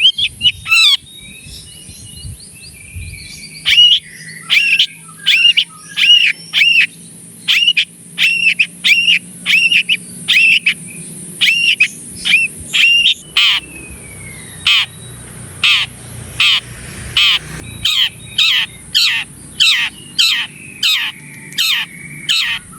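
Long-tailed shrike (cendet) calling in a fast series of short, loud, repeated notes, about two a second, over a steady high hiss. About halfway through, the arched notes give way to sharper down-sweeping strokes.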